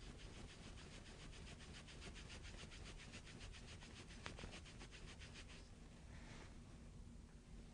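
Fingers rubbing quickly back and forth over kinesiology tape stuck on skin, about eight even strokes a second, rubbing the tape to activate its glue. The rubbing stops about five and a half seconds in and is followed by a softer brush.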